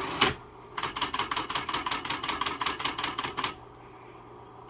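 A 1979 Smith-Corona Coronamatic electric typewriter typing: one key strike, then a fast, even run of strokes at about nine a second for nearly three seconds. Its motor hums steadily underneath.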